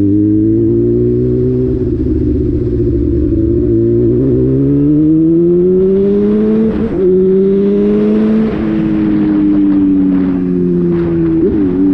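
A vehicle engine under way, its pitch rising slowly and then easing off, with short breaks about seven, eight and a half and eleven and a half seconds in, like gear changes.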